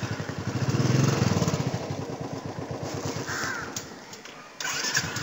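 Royal Enfield Thunderbird 350's single-cylinder engine firing on a first start attempt. It runs in uneven thumps that swell and then die away as it fails to keep running. About four and a half seconds in it fires again, louder, on the second attempt.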